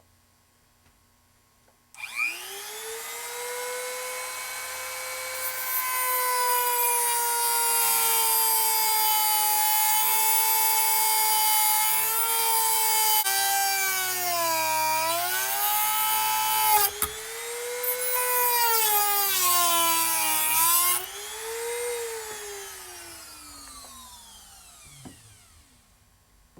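Dremel rotary tool switched on about two seconds in, whining at high speed as it grinds a notch into a seized steel bearing on a mower deck spindle, cut so the bearing can be split off. Its pitch sags a few times under load, it breaks off briefly, then it is switched off and spins down slowly.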